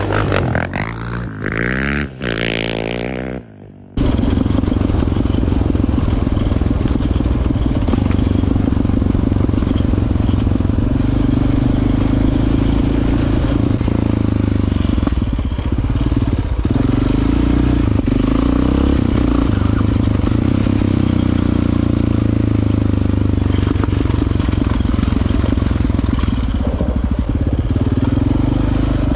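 Quad (ATV) engine running at a steady pace. It cuts in suddenly about four seconds in, after a few seconds of a different sweeping sound that fades away.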